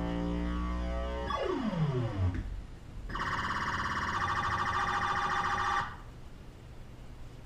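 Electronic sound effects from a Stern Stargazer pinball machine's sound board: steady held tones, then a falling sweep, then a loud warbling, siren-like buzz lasting about three seconds that cuts off suddenly.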